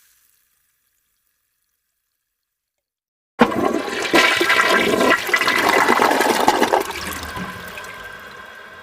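Toilet flushing: after about three seconds of silence, a sudden loud rush of water swirls for a few seconds, then drains away and fades.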